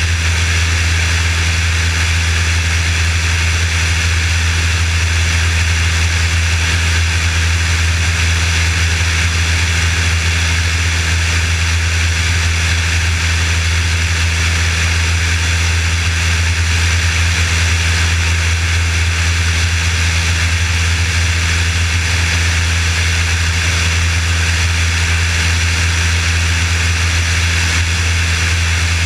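Piper Warrior's four-cylinder Lycoming engine and propeller running steadily on approach to land, a deep drone with a constant rush of air over the wing-mounted microphone.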